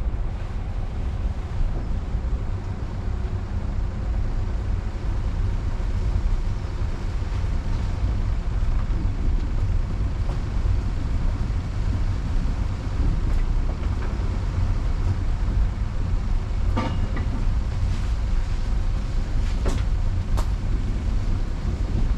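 Car driving: a steady low rumble of engine and tyres on the road, picked up by a GoPro mounted on the car. A few short clicks or knocks come in the last several seconds.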